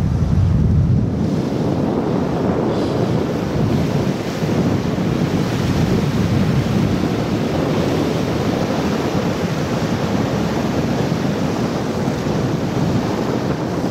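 Steady wind buffeting the microphone, mixed with water rushing along the hull as a Sea Ray motor yacht runs across the bay.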